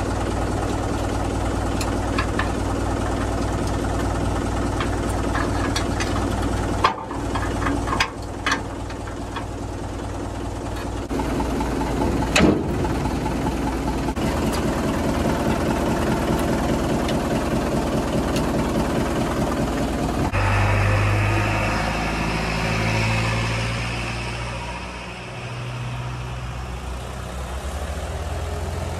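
Diesel engine of a JCB backhoe loader running steadily, with a few sharp knocks about seven, eight and twelve seconds in. About twenty seconds in, the engine sound changes and starts to rise and fall slowly.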